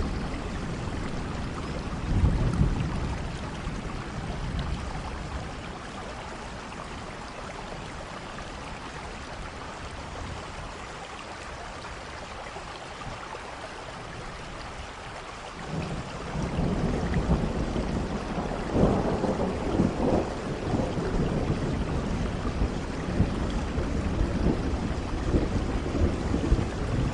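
Steady rain falling, with low thunder rumbles: a short swell about two seconds in, then a longer, louder rumble that builds about halfway through and keeps going.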